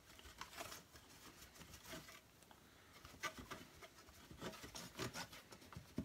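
Faint rubbing and scattered light clicks and taps as the plastic body of a canister vacuum cleaner is handled and wiped.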